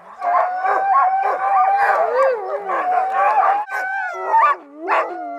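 Sled dogs howling and yelping together, many voices overlapping and gliding up and down in pitch. Near the end this gives way to single barks about half a second apart.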